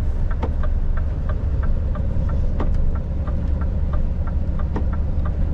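Steady low drone of a Scania V8 truck's engine and road noise heard inside the cab, with the hazard-light flasher ticking regularly a few times a second.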